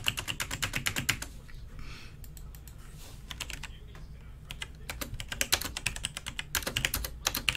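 Computer keyboard being typed on: a quick run of keystrokes, a few scattered keys over the next few seconds, then another fast run of typing.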